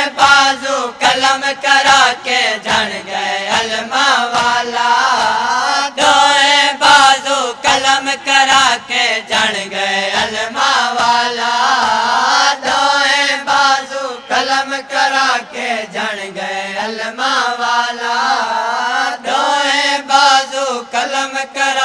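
Noha, a Muharram lament, chanted by a group of men in a continuous melodic line, with sharp slaps of matam, hands striking chests, keeping the beat.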